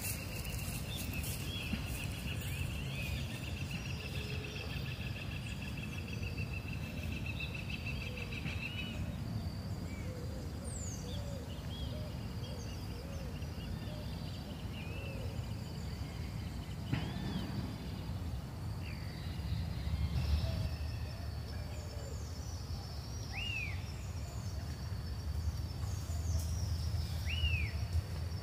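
Wild birds calling: a long fast trill for the first nine seconds or so, lower soft calls, and scattered short rising-and-falling chirps, the clearest three near the middle and end. Under them runs a steady low rumble.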